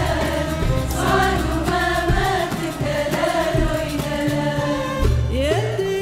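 A women's choir and a female soloist singing an Iraqi song, backed by violins and a frame drum, with a sustained bass underneath. Near the end the pitch slides upward.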